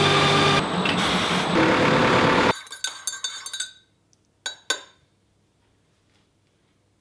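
Factory machinery running with several steady whining tones, cutting off suddenly about two and a half seconds in. A scatter of clinks and light knocks follows, then two sharp knocks close together, then near silence.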